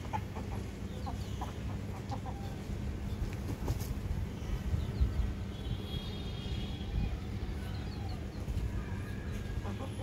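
Chickens clucking in short, scattered calls, clearest about six to seven seconds in, over a steady low hum. A single low bump about halfway through.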